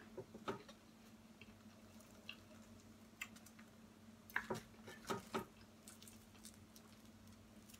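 Faint eating sounds: scattered wet clicks and smacks of chewing fried chicken, with fingers pulling a chicken wing apart. A small cluster of clicks comes a little past the middle.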